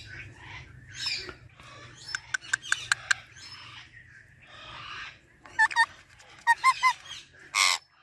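Pet parrot calling. A run of sharp clicks comes a couple of seconds in, then short curling whistles, and a loud harsh squawk near the end.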